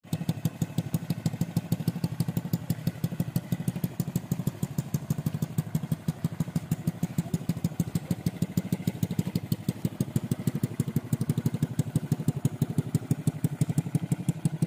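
Small single-cylinder motorcycle engine on a homemade three-wheeled motorbike idling with a steady, even beat.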